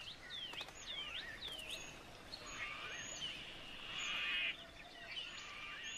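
Bush bird calls over quiet outdoor ambience: a run of short, sweeping whistled notes about twice a second, then a longer buzzing trill that stops about four and a half seconds in, with a shorter one near the end.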